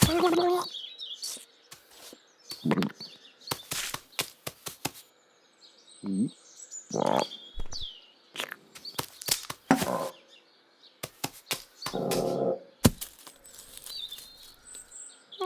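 Cartoon sound effects: a string of sharp knocks and thumps with scuffling in between, a few short voice-like sounds, and small high bird chirps near the end.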